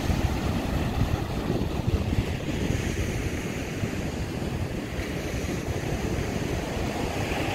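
Ocean surf breaking on a sandy beach and washing up the shore: a steady rushing.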